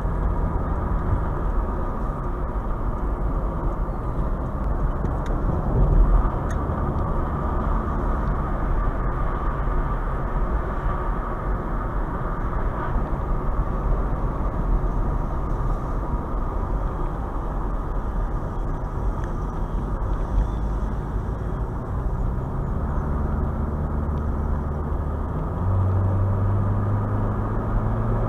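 Car driving, heard from inside the cabin: steady tyre and engine noise. The engine's low hum rises in pitch and gets louder in the last few seconds.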